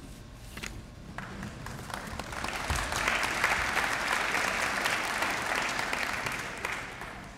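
Large audience applauding, swelling over the first few seconds and dying away near the end.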